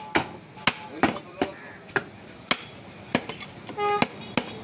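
Butcher's cleaver chopping beef on a wooden log chopping block: sharp, unevenly spaced chops about twice a second.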